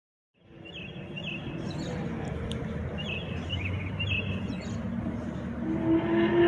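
Outdoor background noise fading in after a brief silence, with small birds chirping repeatedly. Near the end a car engine running grows louder, its note rising slightly.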